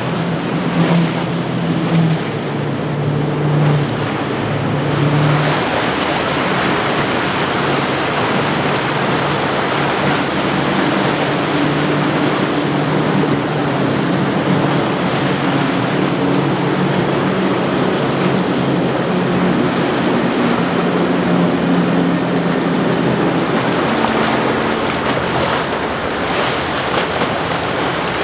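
Outboard-powered sport boats running at speed through choppy water: a steady multi-engine outboard hum over rushing water and hull spray. First come the quad Mercury 350 outboards of a Midnight Express 43 Open, then, about five seconds in, the outboards of a Boston Whaler 420 Outrage.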